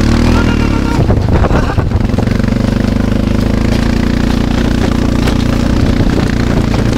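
Engine of a vehicle towing a snow tube on a rope, running steadily at an even speed, with a short rough, bumpy patch between about one and two seconds in.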